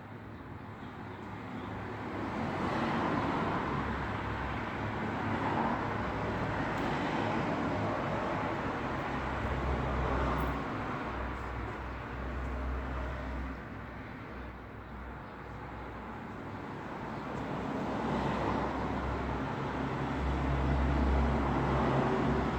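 Road traffic: vehicles passing one after another, the tyre and engine noise swelling and fading about three times over a low rumble, loudest near the end.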